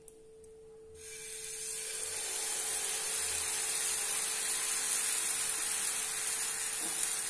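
Dosa batter sizzling on a hot oiled tawa as it is poured and spread with a steel ladle. The hiss starts suddenly about a second in and grows to a steady level.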